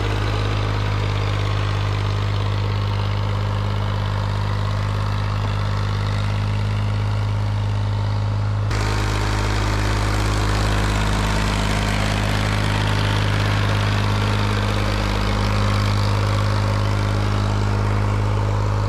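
An engine running steadily at one constant speed with a low, even hum. An edit about nine seconds in shifts the sound slightly.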